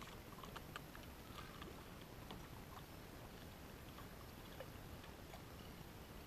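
Quiet evening lake ambience: a faint, steady, high buzz of insects, with a few scattered soft ticks and drips, mostly in the first half.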